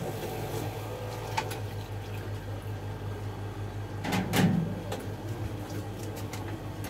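Steady low electrical hum of kitchen appliances, with a few light clicks and a brief louder knocking about four seconds in.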